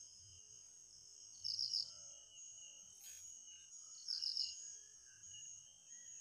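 Evening insect chorus: a steady high-pitched drone of crickets or cicadas, with two louder groups of three quick chirps, about a second and a half in and again about four seconds in.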